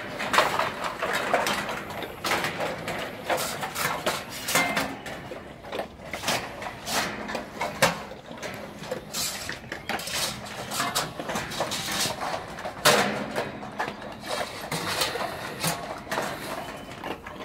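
Large bully pit bulls moving about and eating from stainless-steel food bowls: scattered clicks, taps and metallic clinks of the bowls.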